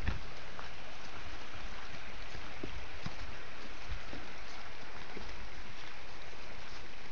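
Steady rushing of a flowing stream, with a few soft footsteps on a dirt trail.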